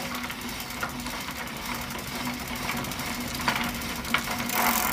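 Old film projector sound effect: a rapid, even mechanical clatter over a low hum and hiss, with a few crackling clicks, growing slightly louder near the end.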